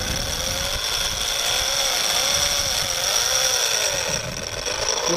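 Large conventional fishing reel's drag screaming as line strips off the spinning spool under a shark's run: a steady, high-pitched mechanical whine.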